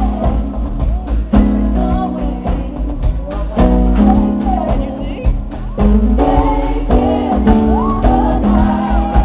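Live band playing a song with held chords and a steady beat, with singing; sung runs come in near the end.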